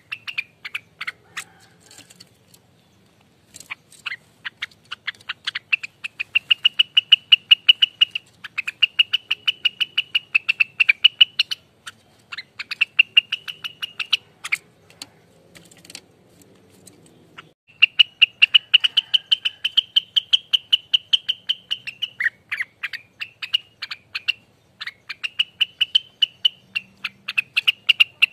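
Rengganis leafbird singing rapid chattering phrases, a fast run of sharp chips fused with a high ringing note, in bursts of a few seconds with brief pauses between them.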